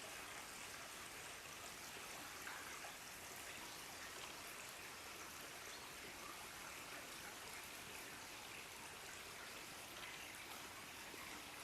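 River water flowing, a steady faint rush without change.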